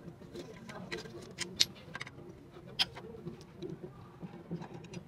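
A few sharp metal clicks and clinks from a T-wrench working the bolts of a Honda CD70's magneto cover and the cover being lifted off, the clearest about a second and a half in and again near three seconds.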